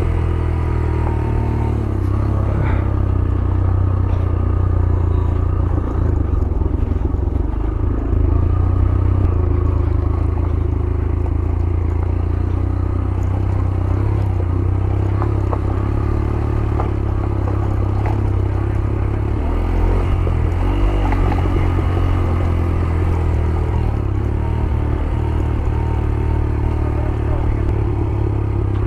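Yamaha YBR 125G's single-cylinder four-stroke engine running steadily, with the bike clattering and rattling as it rides over a rough off-road track.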